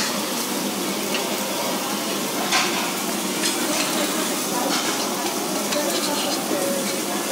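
Raw shrimp sizzling on a hot tabletop barbecue grill: a steady hiss, with a few light clicks.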